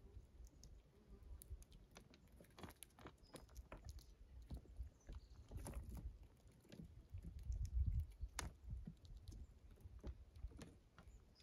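Gray squirrel chewing and crunching dried corn kernels, with scattered small clicks and ticks as kernels are picked over. A brief low rumble comes about eight seconds in.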